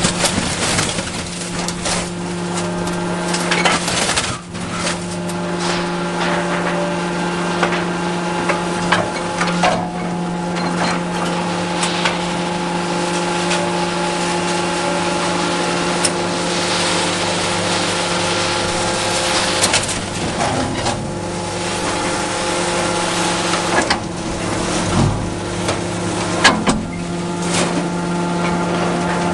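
Komatsu excavator's diesel engine running steadily while its hydraulic grapple picks up scrap steel plates, with repeated clanks, knocks and scrapes of metal on metal. The sharpest knocks come near the end.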